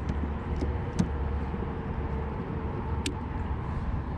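Wind buffeting the microphone as a steady low rumble, with three short sharp clicks from handling gear in a kayak.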